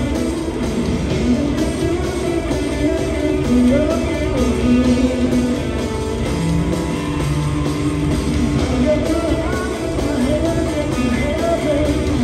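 Rock band playing live: sung vocals over guitar, bass and drums.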